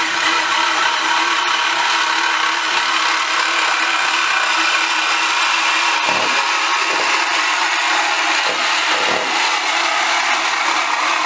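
A handheld power tool running steadily under load on the exhaust pipe: a continuous hiss over a wavering motor whine, with a few short knocks about six to nine seconds in.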